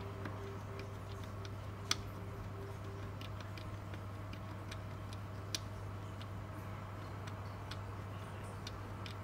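Small plastic clicks of an electric oven's timer button being pressed again and again at an uneven pace, two of them louder, about two and five and a half seconds in. A steady low hum runs underneath.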